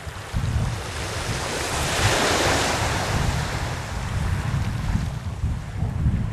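Small sea waves breaking and washing up a shelly sand beach, with one wash swelling loudest about two seconds in. Wind rumbles on the microphone underneath.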